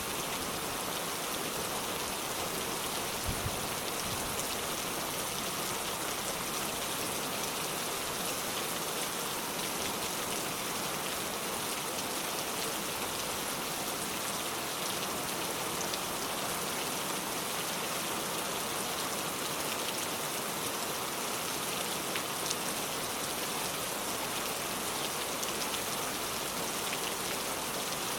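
Steady rain falling as an even hiss, with a few slightly louder drop hits, one about three seconds in and another past twenty seconds.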